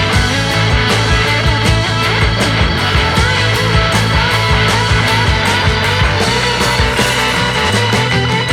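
Background rock music with electric guitar and a steady driving beat.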